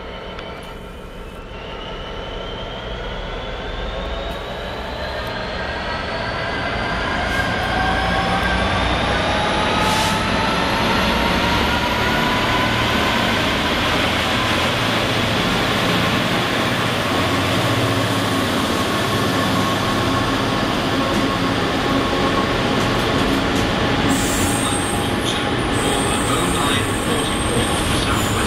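Two Freightliner Class 66 diesel locomotives, with EMD two-stroke V12 engines, hauling a container freight train past, growing louder over the first several seconds with an engine note that rises in pitch. Then the steady noise of the container wagons rolling by, with a high wheel squeal near the end.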